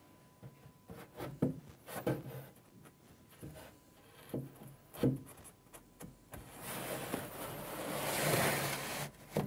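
Soft knocks and rubbing from hands working at the cabinet's top edge, then, about six and a half seconds in, a longer scraping rustle as the thin cut back panel slides down into the carcass.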